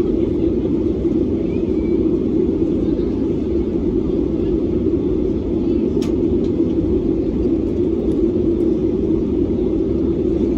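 Steady cabin noise inside an Airbus A320neo airliner in flight, a constant rumble of its CFM LEAP-1A engines and airflow over the fuselage, heard from a window seat by the wing. A faint click sounds once about six seconds in.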